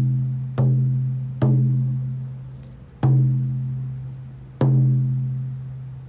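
Medicine drum (a frame drum) struck five times at a slow, uneven pace, each stroke a deep boom that rings on and slowly fades; the gaps between strokes lengthen, so the last strokes ring out longer.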